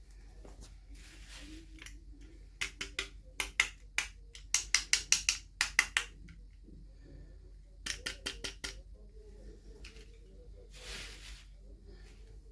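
Small hard plastic pieces being handled during an unboxing: clusters of quick, sharp clicks and taps, several a second, in two bursts, then a brief rustling swish near the end.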